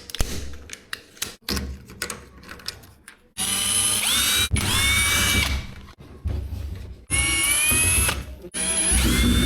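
Electric drill-driver fitted with a 10 mm socket, run three times to back out the screws in a washing machine. Each run rises to a high whine as the motor spins up. Light clicks and knocks of handling come first.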